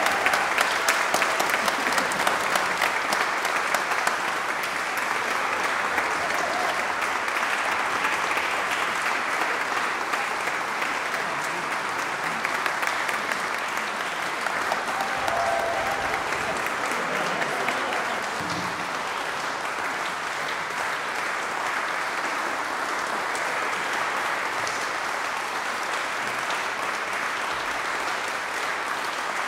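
Audience applauding steadily, a dense patter of many hands clapping that slowly eases in level.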